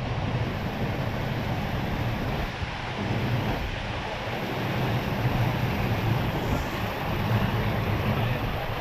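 Steady rush of sea surf, mixed with wind buffeting the microphone.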